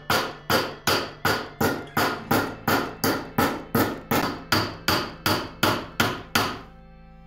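Ball-peen hammer striking a flat metal spoon blank set in the hollow of a small metal swage block held in a vise, dishing out the spoon's bowl. Steady blows about two a second, each with a short metallic ring, stopping near the end.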